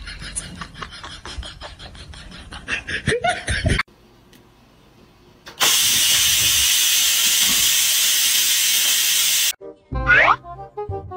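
Electric pressure rice cooker venting steam: a loud, steady hiss that starts suddenly about halfway in and lasts about four seconds, then stops abruptly. Before it there is a stretch of rapid clicking, and near the end two falling cartoon boing sound effects.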